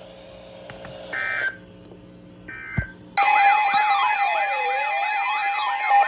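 Two short warbling two-tone data bursts, typical of EAS end-of-message tones, about a second and two and a half seconds in. Just after three seconds a loud layer of several sirens begins, overlapping, some yelping fast up and down and one wailing slowly.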